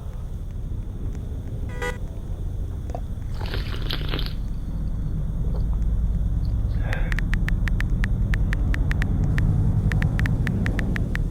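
A steady low rumble like a motor vehicle running. A brief hiss comes a few seconds in, and from about halfway on there is a rapid, irregular run of sharp ticks.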